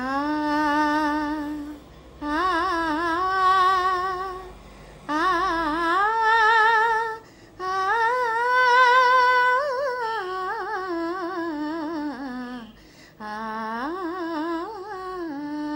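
A woman singing a slow melody unaccompanied, in about five phrases with long held notes and a wavering vibrato, pausing briefly for breath between them.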